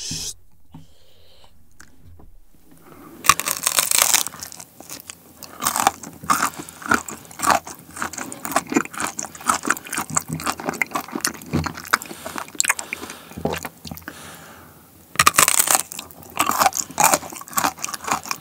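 Close-miked bites of bark chocolate topped with crisp dried orange slices: a sharp snap about three seconds in, then dense crunching and chewing. After a short pause near the end, another bite and more crunching.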